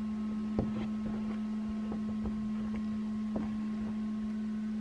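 Steady hum of a running egg incubator, one even tone that does not change, with a couple of faint knocks of handling.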